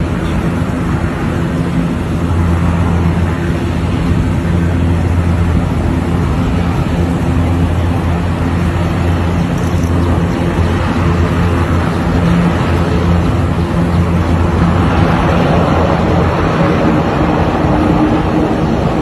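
Military air-cushion landing craft (LCAC hovercraft) running at speed: a steady deep hum from its engines and ducted propellers under a loud rushing hiss of air and spray. The hiss grows louder and rougher about fifteen seconds in.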